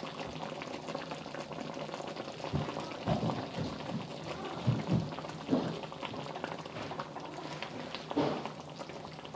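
Cornstarch-thickened beef gravy simmering in a pan over medium-low heat, bubbling steadily with a few louder pops at irregular moments.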